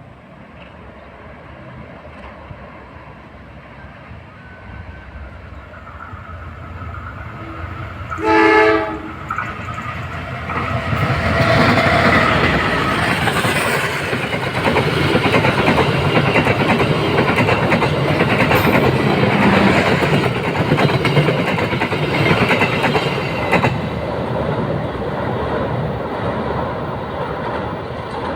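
Train hauled by a diesel locomotive approaching, its horn sounding once for about a second, then passing close by with engine noise and wheels clacking over the rail joints. The noise falls away near the end.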